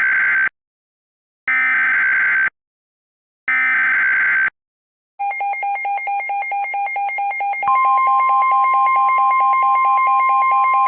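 Emergency Alert System SAME header: three one-second bursts of screeching digital data tones, each followed by a second of silence. About five seconds in a loud, rapidly pulsing alert tone starts, and a second, higher steady tone joins it about eight seconds in: the attention signal that comes before a weather warning.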